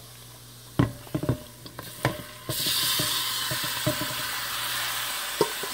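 A few metal knocks and scrapes against a Dutch pot of hot oil with burnt curry and garlic. About two and a half seconds in, a loud sizzle starts as marinated chicken is tipped into the hot oil, and it keeps frying steadily.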